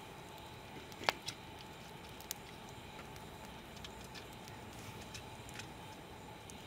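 A few sharp clicks and ticks over a steady low background noise. The loudest click comes about a second in, a smaller one follows right after it, and another comes a little over two seconds in.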